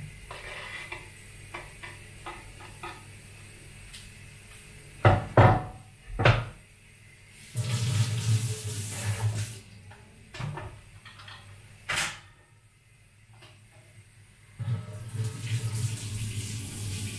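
Tap water running into a sink in two spells, with a few sharp knocks and clatter in between.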